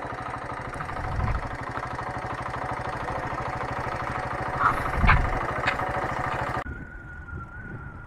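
Motorcycle engine idling with an even beat, with a thump about five seconds in. Near the end the sound cuts abruptly to a quieter steady hum.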